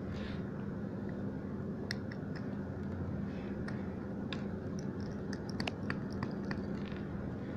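Scattered small clicks and light scrapes of a screwdriver working the screws that hold a tablet's circuit board, over a steady low hum.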